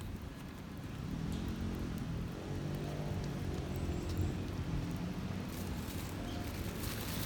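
A motor vehicle's engine passing by: a low engine hum with a steady pitch that swells from about a second in and fades again after about five seconds. A few faint clicks are scattered through it.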